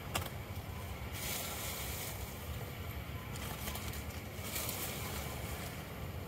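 Wind and handling noise on the microphone: a steady low rumble, with a sharp click just after the start and two stretches of hiss, about a second in and again about four and a half seconds in.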